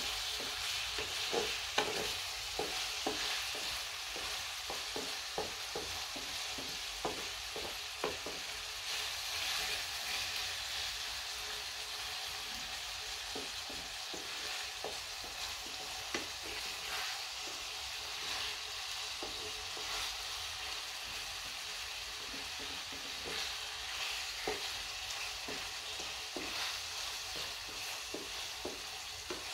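Goat liver and tomatoes sizzling steadily in a metal pan while a wooden spatula stirs them, knocking and scraping against the pan in quick irregular taps that are busiest in the first several seconds.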